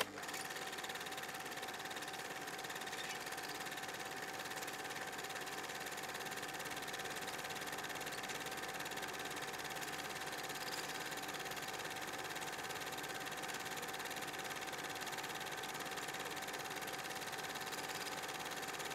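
Steady mechanical hum with a constant high tone through it, starting abruptly and holding level without change.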